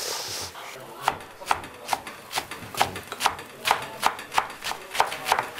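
A kitchen knife chopping eggplant peel on a wooden cutting board, about two or three chops a second, mincing the peel. It opens with a short scraping hiss from a vegetable peeler taking skin off the eggplant.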